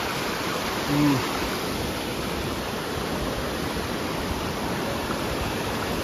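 Shallow rocky stream rushing over stones, a steady rush of water. A short voice sound breaks in about a second in.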